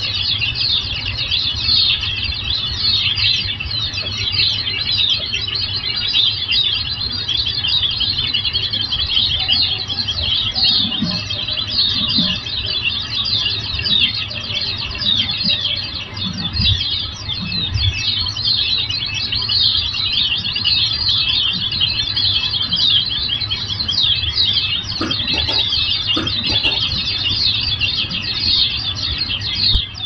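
A flock of white-eyes (pleci) twittering together: many rapid, high chirps overlapping without a break, over a steady low hum.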